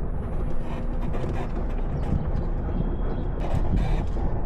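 Truck driving across the farm, heard from its open back tray: a steady low rumble with scattered knocks and rattles.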